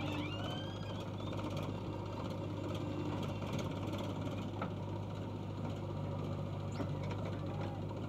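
Diesel engine of a JCB backhoe loader running at a steady speed with a low, even hum while the backhoe boom lifts and swings a bucket of mud.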